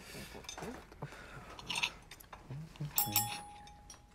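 Small clicks and clatter of tableware at a meal. About three seconds in come two quick sharp clinks, and a single clear ringing tone hangs for about a second before fading.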